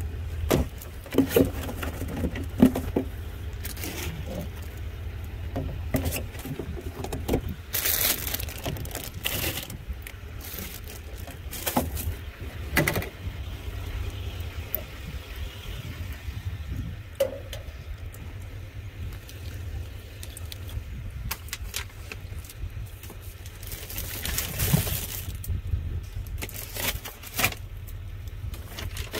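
Scattered knocks, clanks and scrapes from handling gear and a metal step stool, with rustling near the end, over a steady low rumble.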